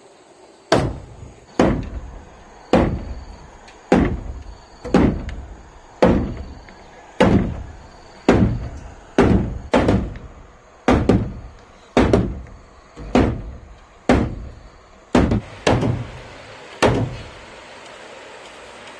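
Wooden mallet knocking on a timber crossbeam, about one knock a second, each with a short ringing tail, around seventeen strikes that stop near the end.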